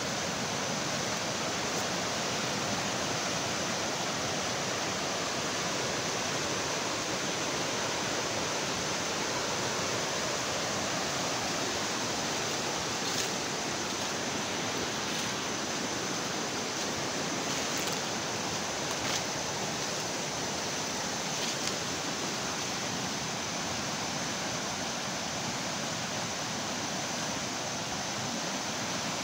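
Steady rushing of a swollen, fast-flowing river running over rapids.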